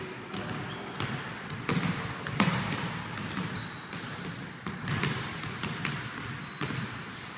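Irregular knocks and thuds on a hard surface, with a few short high squeaks about halfway through and near the end.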